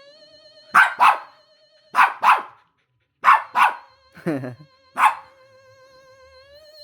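A dog barking about nine times, mostly in quick pairs, at a battery-powered Halloween decoration. Under the barks the decoration gives off a steady, wavering electronic tone.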